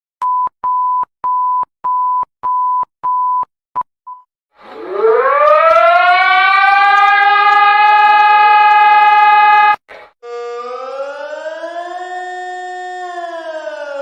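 About ten short beeps at one pitch, roughly two a second, the last two shorter. Then an air-raid-style civil defense siren winds up and holds a steady tone for about five seconds before cutting off. After a brief gap, a siren wails slowly up and down.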